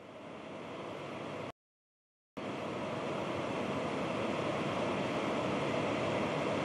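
Steady rushing noise, like wind, with no distinct tone. It cuts out completely about a second and a half in, for under a second, then comes back steady.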